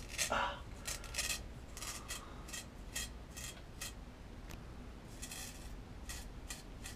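Chef's Foundry P600 ceramic chef knife scraping dry beard whiskers in short strokes, each one a brief rough scratch, coming irregularly and more often in the first half. The blade is cutting the hair but pulling at it.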